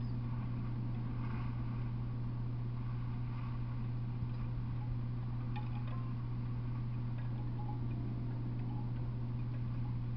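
A steady low hum with faint, scattered high chiming notes and a few light ticks over it.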